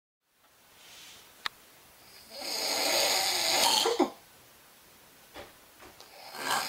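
A person snoring: one loud snore lasting about two seconds, its tone dropping as it ends, after a short click. A second snore begins near the end.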